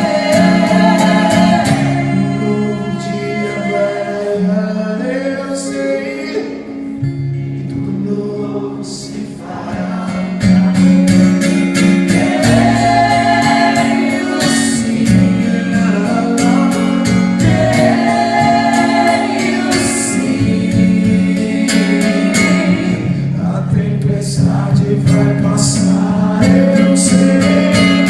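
Music: a song with voices singing over instrumental backing, with a steady beat.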